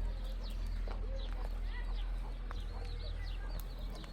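Many birds chirping together in quick, overlapping short calls, over a steady low rumble.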